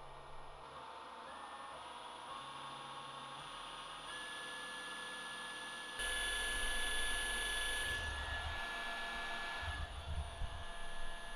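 AC servo motor used as a lathe spindle motor, running unloaded at about 1000 rpm with a steady whine made of several tones. It gets louder about six seconds in, and there are a few low bumps in the last few seconds.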